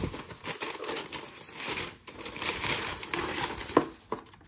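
Brown kraft wrapping paper crinkling and rustling as it is unfolded and pulled off a box, with one sharp knock near the end.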